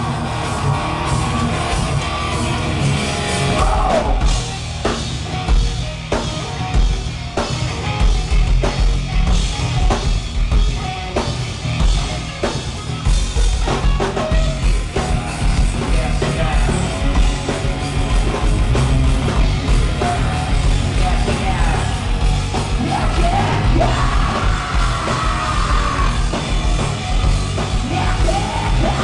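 Hard rock band playing live: heavy drums and guitars with a yelled vocal, the drum hits driving hard from about four seconds in and the vocal coming back near the end. The low end is heavy and booming.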